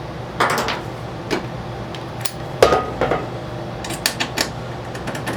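Metal-on-metal clinks and knocks of a socket being worked free from a stuck, rusty screw: about eight sharp separate strikes, one near the middle leaving a short ring.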